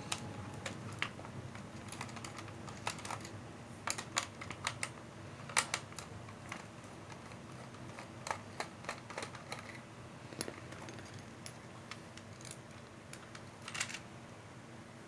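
Light, irregular clicks and taps of hard plastic as an E99 toy drone's radio remote is handled and pried open, coming in short clusters a second or several seconds apart over a faint steady hum.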